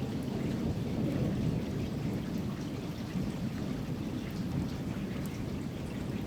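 Steady rain with many fine drops ticking, over a continuous low rumble of distant thunder.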